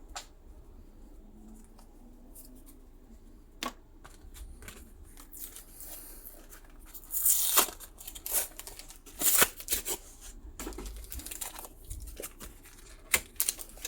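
Foil booster-pack wrapper being torn open and crinkled by hand, in several short crackling bursts with quieter handling in between, the loudest about halfway through.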